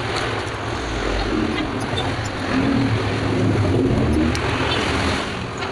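Steady background din of road traffic, a continuous low rumble with no single event standing out.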